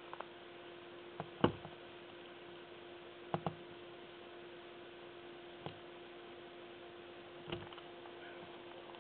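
A tortoise's shell and claws knocking against the glass front of a vivarium: a handful of short, irregular knocks and clicks, the loudest about one and a half seconds in and a close pair about two seconds later. A steady low hum runs underneath.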